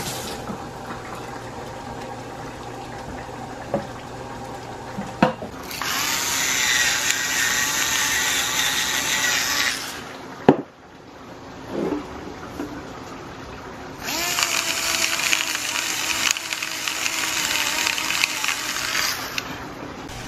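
Water running hard into a sink in two stretches of about four seconds each, a steady rushing hiss, as the liquid is drained off the browned ground beef. A sharp knock comes between the two stretches.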